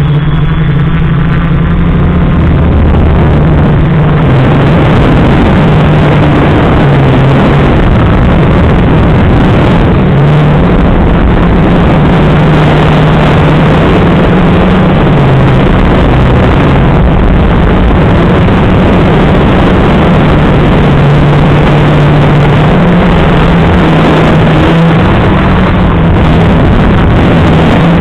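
FPV racing quadcopter's electric motors and propellers buzzing loudly close to the microphone, the pitch wavering up and down as the throttle changes.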